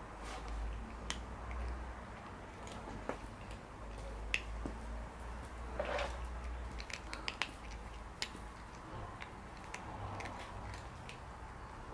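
Cat eating, its chewing making irregular sharp crunching clicks, over a low steady background rumble.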